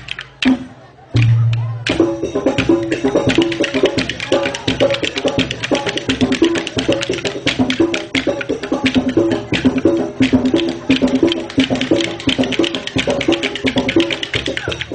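Music with fast, busy percussion and a repeating pitched figure. It drops out briefly about a second in, then carries on steadily.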